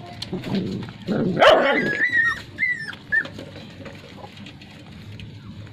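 Nursing puppies whimpering: a loud cry about one and a half seconds in, then several short, high whines, then quieter.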